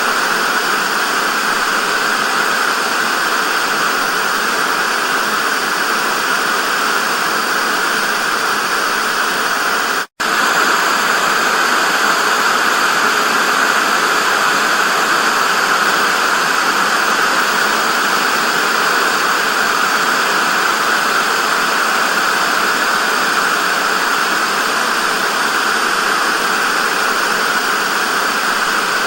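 Television static: a loud, steady hiss with no tones, strongest in the upper-middle range. It cuts out for a split second about ten seconds in, then resumes unchanged.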